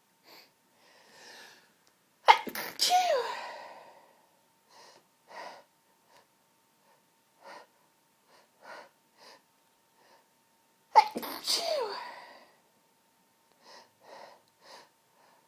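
A woman sneezing twice during a sneezing fit, about nine seconds apart. Each sneeze starts suddenly and ends in a short falling cry, with brief quiet breaths in between.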